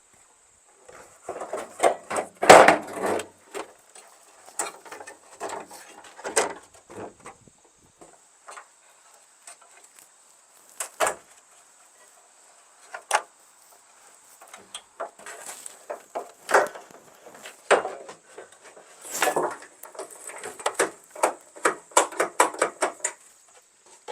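Irregular clunks, clicks and rattles of hand work on a van's rear door and its number plate box, taken off to reach the lock. The loudest clatter comes about two and a half seconds in, with busier runs of clicks later on.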